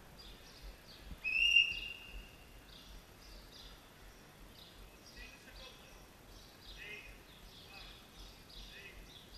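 Small birds chirping again and again in short high notes, with one loud, clear whistle-like tone held for about a second, about a second in.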